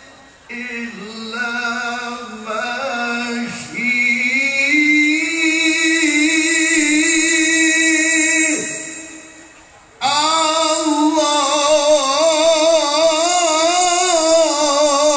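Male qari chanting in Arabic into a microphone through a PA system: long held, ornamented phrases with wavering pitch. One phrase climbs in steps and then fades out for a breath a little past the middle, and a loud new phrase follows.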